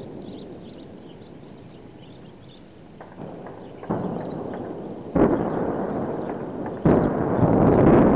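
Explosions: a rumble dies away, then a run of sudden blasts, the loudest about five and seven seconds in, each trailing off into a long rumble.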